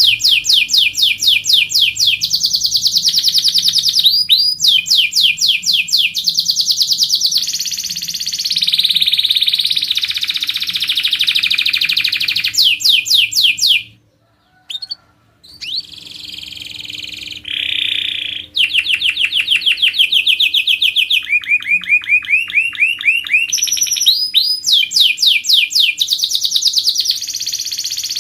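Domestic canary singing long rolling trills of rapid repeated high notes, breaking off briefly about halfway through before starting up again.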